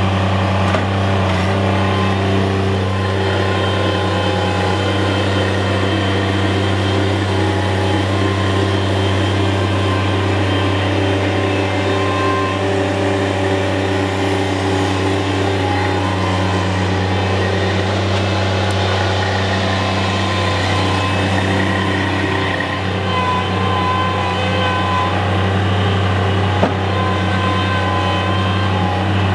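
Bobcat MT85 mini track loader running and working, its engine holding a steady pitch with small shifts as it digs and moves, and one sharp tick near the end.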